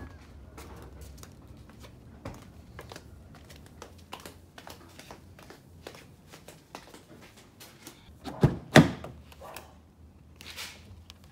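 Scattered light clicks and knocks, then two heavy thumps in quick succession about eight and a half seconds in.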